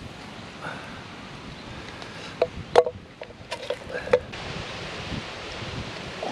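Steady wind noise on the microphone, with a few light clicks and knocks about halfway through.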